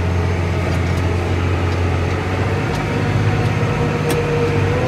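John Deere 8400 tractor's six-cylinder diesel engine running steadily under load, heard inside the cab. The low drone shifts slightly about halfway through, and a faint steady whine comes in near the end.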